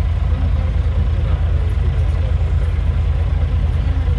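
A vehicle engine idling with a steady low rumble.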